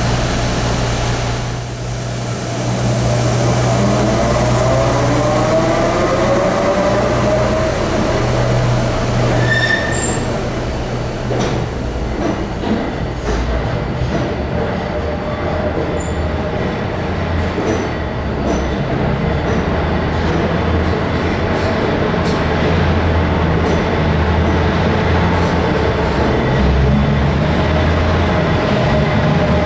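Diesel work locomotive hauling R188 subway cars slowly through an underground station, its engine giving a steady low drone. Wheels squeal in faint rising tones over the first several seconds. From about ten seconds in, the wheels click irregularly over the rail joints.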